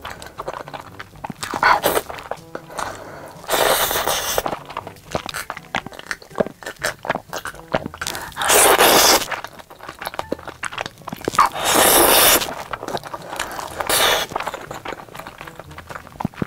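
Close-miked eating sounds: crunching and chewing with many small wet clicks, broken four times by a louder noisy rush about a second long.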